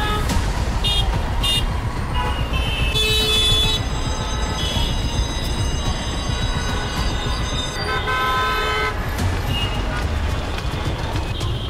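Busy city street traffic: a steady low rumble of vehicles with horns honking again and again, several short toots and a few longer blasts.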